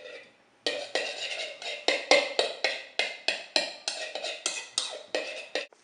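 A utensil clacking rapidly against a mixing bowl as garlic and salt are mashed, about four sharp strikes a second. It starts suddenly just under a second in and stops abruptly near the end.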